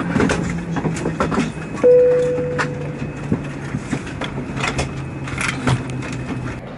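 Airbus A320neo's Pratt & Whitney geared turbofan winding down after shutdown, a low hum sinking slowly in pitch. Clicks and rattles in the cabin run alongside it, and a single loud chime sounds about two seconds in and fades out.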